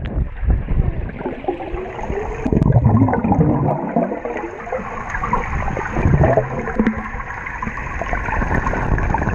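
Muffled underwater sound of swimming-pool water, heard from beneath the surface: churning water, bubbles and low rumbling from swimmers moving close by.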